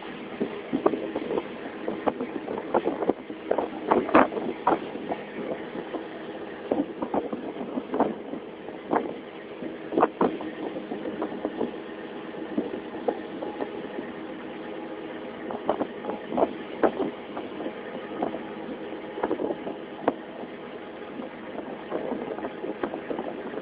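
A small boat's engine running steadily, with irregular knocks and clatters over it.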